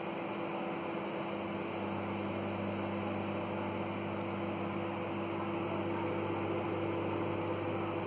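Kenwood microwave oven running: a steady electrical hum under an even hiss.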